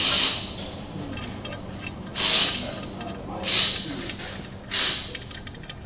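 Brake lathe's cutter arms being wound in by hand toward the rotor: faint clicks from the adjusters, and three short scraping hisses about a second and a quarter apart.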